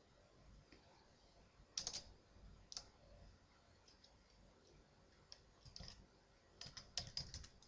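Faint computer keyboard and mouse clicks: a few single clicks about two and three seconds in, then a quick run of keystrokes near the end as typing begins.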